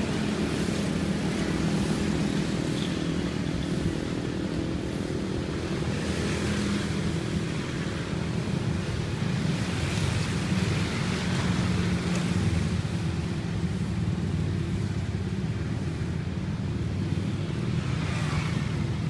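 Busy street traffic, mostly motorcycles and scooters with some cars, passing steadily in a continuous mix of small engines running.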